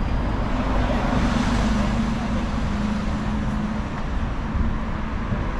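Road traffic on the bridge: a motor vehicle passing, its engine hum heard for the first few seconds, falling slightly in pitch and fading, over steady traffic noise.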